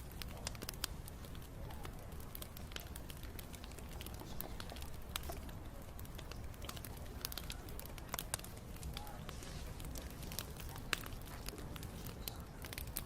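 Wood bonfire burning: a steady low rumble of flames with irregular sharp crackles and pops from the burning wood, a few louder pops standing out.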